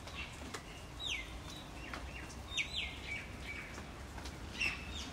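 Birds calling: short whistled notes that slide down in pitch, repeated every second or so, over a low steady hum, with a couple of faint clicks.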